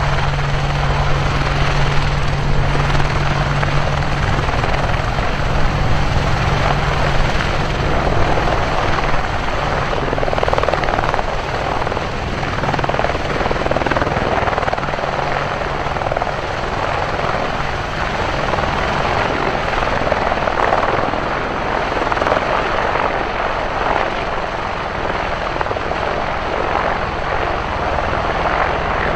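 AH-64 Apache attack helicopter running its rotors and twin turboshaft engines as it lifts off and hovers low, a loud steady rotor and turbine noise. A low steady hum fades after about ten seconds.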